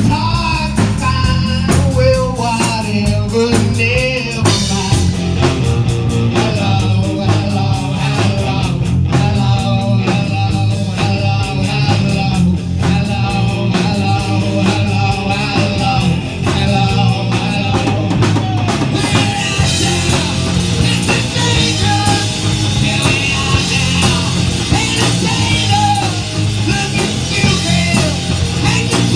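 Live amplified rock band playing: electric guitar and drum kit, with a male singer on a microphone.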